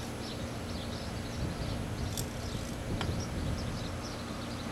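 4-ton R-22 air-conditioner condensing unit running, its compressor and fan giving a steady low hum. A sharp click sounds a little after two seconds in, and faint high chirping runs behind.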